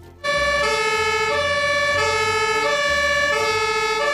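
Two-tone fire engine siren switching back and forth between a high and a low note about every two-thirds of a second. It starts suddenly about a quarter second in.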